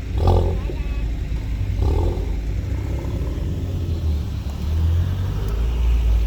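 Tuned car engine running with anti-lag: a heavy low exhaust rumble broken by two short bursts of crackle, one just after the start and one about two seconds in.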